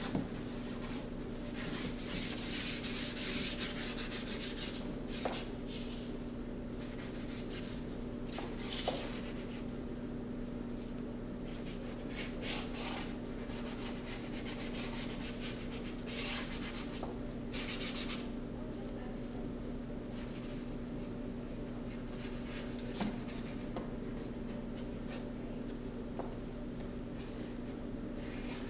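A paintbrush scrubbing over a cardboard board in several short bursts of strokes, loudest a few seconds in and again a little past the middle, over a steady low hum.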